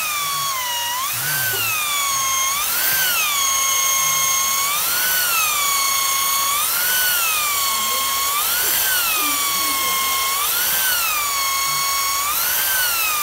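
Electric drill whining as it bores into a wooden chopping board, its pitch rising and falling back about once a second.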